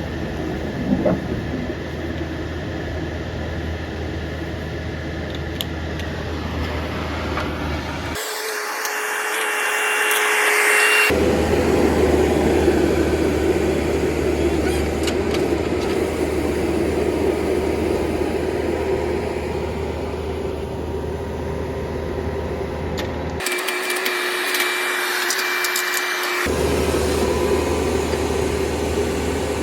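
Engine of directional drilling equipment running steadily with a constant low hum. Twice, for about three seconds each, the low hum cuts out abruptly and a higher hiss takes over.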